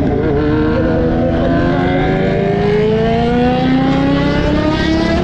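Kawasaki Z900 inline-four motorcycle engine running on the move, its note rising steadily in pitch, over the rush of wind and road noise.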